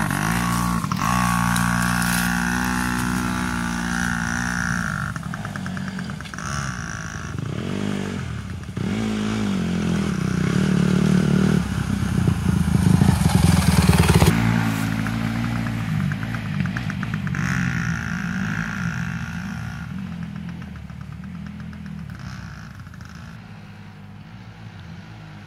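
Dirt bike engines, a Yamaha PW80 two-stroke and a Honda CRF150R four-stroke, riding past with the pitch rising and falling as the throttle is worked. The sound is loudest as the CRF150R comes by, drops off sharply about halfway through, and then both bikes fade into the distance.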